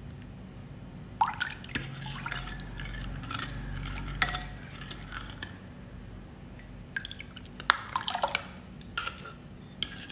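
Metal spoon scraping thick sweetened condensed milk out of a small cup into a ceramic bowl of coconut milk, with irregular clinks of the spoon against the bowl and liquid drips.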